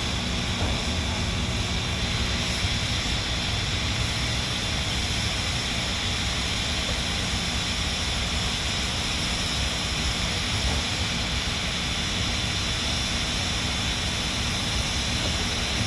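Steam hissing steadily out of the standing Polson Logging Co. No. 2 steam locomotive, a loud even rush with a low rumble underneath.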